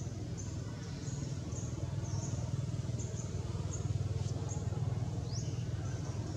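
Steady low drone of a motor running, with short high-pitched chirps repeating about twice a second over it and two quick rising chirps near the end.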